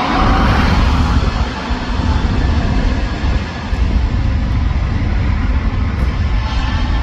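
Airbus A320's twin jet engines at take-off power as the airliner rolls down the runway: a loud, steady rumble that is heaviest in the deep bass.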